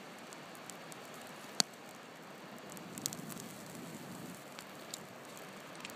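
Small campfire of dry fern and cane sticks crackling and hissing as the damp fuel catches and smokes, with scattered pops, the sharpest about one and a half seconds in.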